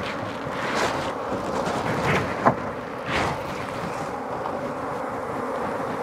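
Honey bees buzzing in a steady drone around an opened hive, mixed with wind noise on the microphone, a few short hissing gusts and a sharp click about two and a half seconds in.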